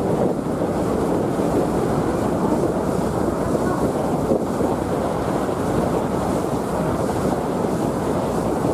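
Wind buffeting the microphone on the deck of the JR Miyajima ferry under way, over a steady rush of water and the low hum of the ferry's engine.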